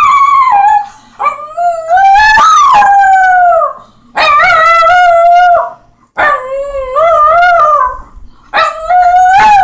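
A pet dog howling: a string of long, wavering howls, each a second or two long with short breaks for breath between them.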